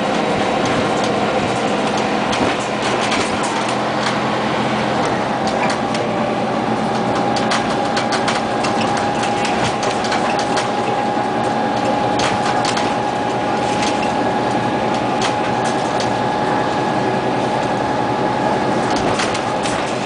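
Inside a moving Scania CN94UA OmniCity city bus: the engine and drivetrain running steadily, with a whine that rises slightly about five seconds in and then holds. Frequent short rattles and clicks come from the bus body and fittings.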